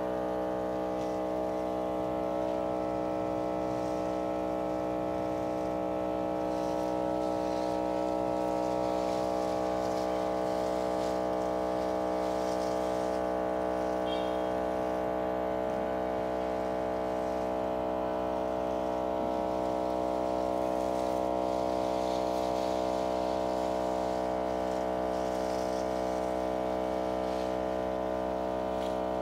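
Motorised garden sprayer's pump running steadily, a constant even hum that does not change in pitch.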